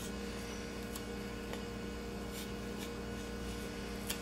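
Steady low electrical hum with faint room noise, and a few faint light clicks.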